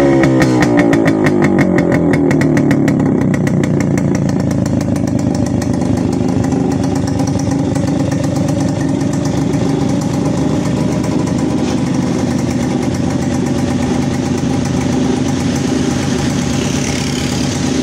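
Motorcycle engine, freshly revived after about twenty years in storage, dropping back from a rev over the first couple of seconds and then settling into a steady idle.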